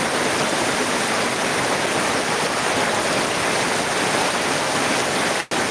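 Heavy rain pouring down in a steady hiss, with a brief dropout in the sound near the end.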